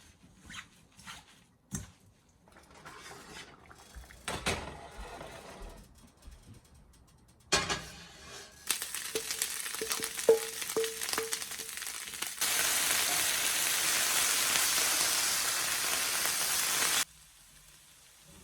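Food frying in a pan: a few scattered knocks and clatter, then sizzling starts about nine seconds in, grows louder and steady from about halfway, and cuts off suddenly near the end.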